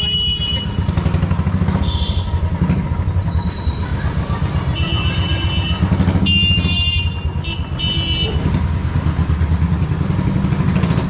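Royal Enfield Classic 350's single-cylinder engine thumping steadily through an aftermarket GT megaphone silencer as the bike rides slowly down the lane. Several short horn honks come in the middle, around five to eight seconds in.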